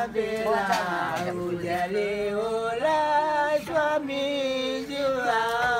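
Voices singing a slow, chant-like melody in long held notes.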